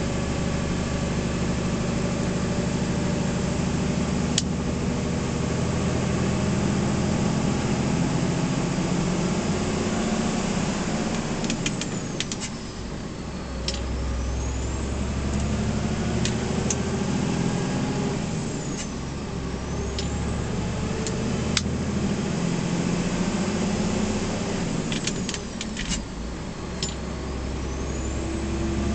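A heavy lorry's V8 diesel engine running under load as it climbs a hill, heard from inside the cab. Its pitch shifts and the sound dips briefly about a third and two-thirds of the way through, with a few sharp clicks and faint high whistling slides around those points.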